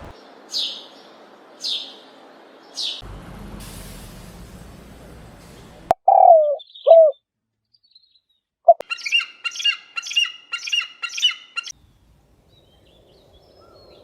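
Several different birds calling one after another. First come three short high chirps. Next are two lower, curved calls. Last is an evenly spaced run of six repeated call notes.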